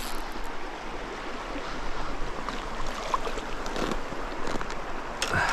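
Trout stream running: a steady, even rush of flowing water, with a brief faint sound near the end.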